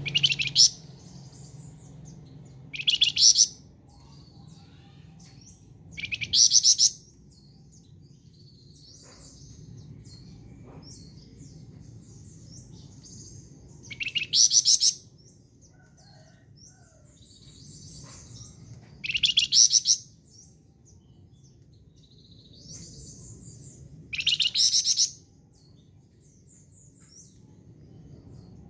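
A songbird known to bird keepers as a 'flamboyan' singing in full voice: six loud, high-pitched bursts of rapid repeated notes, each lasting under a second and coming several seconds apart, with fainter twittering between them.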